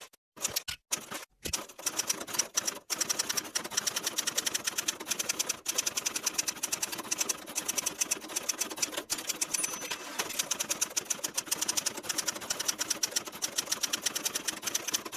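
Rapid, steady mechanical clicking, many clicks a second, stopping and starting a few times in the first three seconds and then running on almost without pause.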